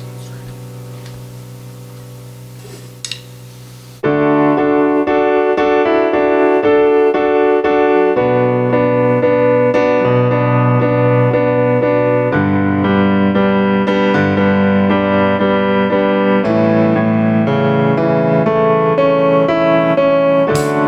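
Piano music: a held chord fades for about four seconds with a few faint ticks, then loud piano chords come in abruptly and change every couple of seconds.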